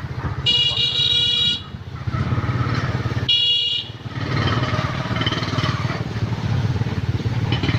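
Motorcycle engine running steadily, with two short horn beeps: one about half a second in lasting about a second, and a shorter one a little past three seconds in.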